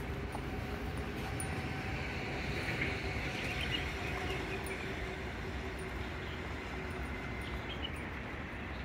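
Steady low rumble of distant road traffic, with a faint hum and a few high bird chirps around the middle.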